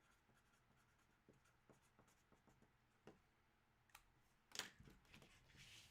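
Near silence with faint handling noises: scattered small clicks and rubs, and one louder short rustle or scrape about four and a half seconds in.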